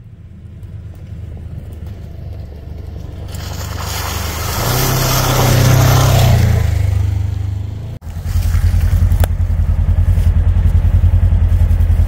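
Polaris Ranger side-by-side's engine driving along a muddy trail, growing louder over several seconds with a rushing hiss of tyres and mud on top. After a sudden break, the engine runs at idle with a steady, rapid pulse.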